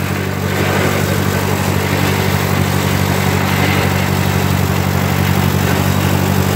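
Cockshutt 30 tractor engine running steadily while the tractor is driven, loud throughout.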